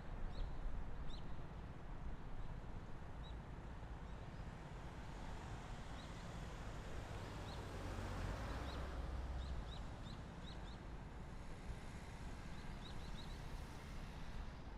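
Small birds chirping in short, high notes, singly and in quick runs, over a steady outdoor hiss and low rumble; a broad whoosh swells and fades about eight seconds in.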